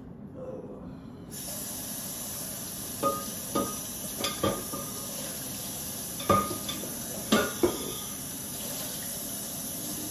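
Kitchen tap running into the sink, starting about a second in, with about seven sharp clinks and knocks of a glass plate being handled and rinsed under it.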